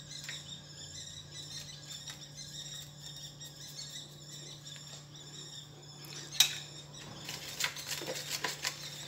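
A spoon clicking and scraping against a plastic bowl as a thick mayonnaise-and-mustard marinade is stirred, starting with a sharp click about six seconds in. Before that only a faint steady hum and a faint high chirping are heard.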